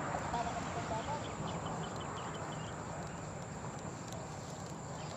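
Steady outdoor background noise beside still water, with a run of faint high chirps in the first two seconds.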